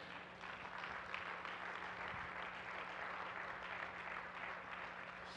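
Congregation applauding, a faint, steady patter of clapping, with a low electrical hum beneath.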